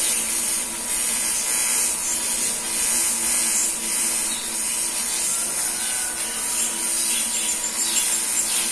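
TIG welding arc on aluminium: a steady, loud buzzing hiss while the arc is held on the joint to heat it. The arc cuts out just after the end.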